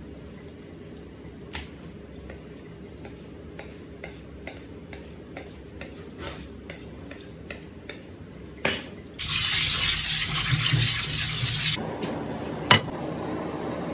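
Chef's knife chopping a monkfish fillet on a plastic cutting board: a run of light, irregular taps. About nine seconds in, a loud rushing hiss takes over for a couple of seconds, followed by a single sharp clack.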